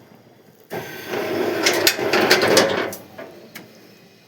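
A burst of clattering and knocking lasting about two seconds, starting shortly after a quiet moment, then a single click.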